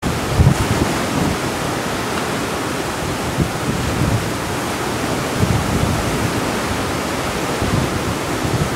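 Steady rush of seawater churning along the side of a moving cruise ship's hull, with wind now and then buffeting the microphone in low rumbling gusts.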